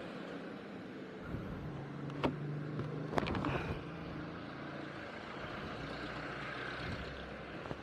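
Street traffic: a vehicle engine running steadily for a few seconds, with two sharp clicks in the middle and passing motor noise after.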